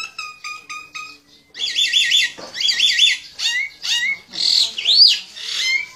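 Myna calling: quick bursts of high chirps, several notes to a burst, with a few longer sweeping calls near the end.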